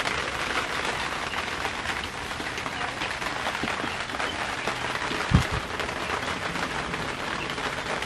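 Steady patter of rain on a tarp shelter, a dense hiss of tiny taps, with a single short low thud about five seconds in.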